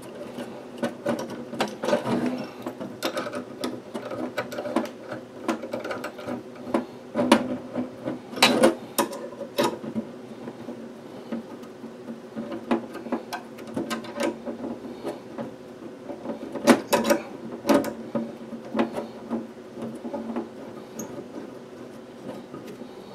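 Metal coaxial connectors being unscrewed and threaded together by hand while a coaxial attenuator is fitted into the line: many small irregular clicks, taps and scrapes of the metal coupling nuts, over a steady low hum.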